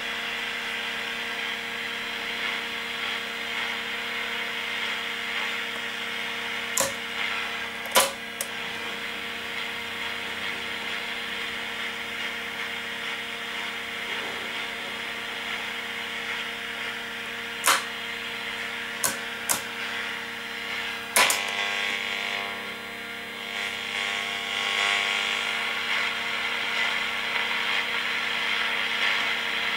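Becker Monaco car radio giving out a steady radio-static hiss over a low hum while it is tuned between stations, with about six sharp clicks from its pushbuttons and knobs. The hiss changes character in the last third as the tuning moves.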